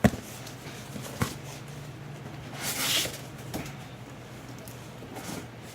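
Handling and opening a cardboard shipping box: two sharp knocks, one at the start and one about a second in, then scraping and rustling of the box and its packing.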